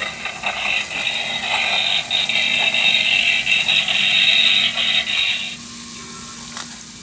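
Goldlok walking Robby the Robot toy's small motor and plastic gears whirring and rattling as it walks, stopping about five and a half seconds in.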